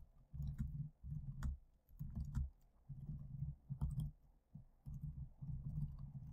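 Typing on a computer keyboard: faint runs of key clicks and thuds in short bursts, with brief pauses between them.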